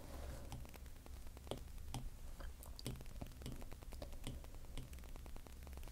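Faint, irregular light taps of an Apple Pencil's plastic tip on the iPad's glass screen, over a low steady hum.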